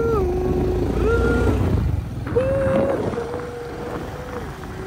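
Motorcycle engine rumbling on the move, with long held tones over it that step up and down in pitch and break off every second or so.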